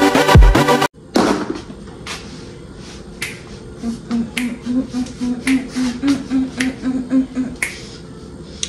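Background music cuts off sharply about a second in. Then comes a series of irregular sharp clicks and taps, about one or two a second, from pantry items being handled and set down.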